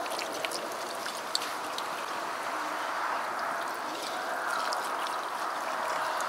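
Dark beer pouring steadily from a glass bottle into a cast-iron pot of meat, a continuous trickling splash with a few faint ticks.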